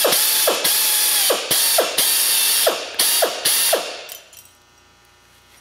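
Pneumatic sheet-metal shears cutting aluminum diamond plate: the air motor and blades run with a loud hiss of exhaust air in a string of short runs. They stop about four seconds in.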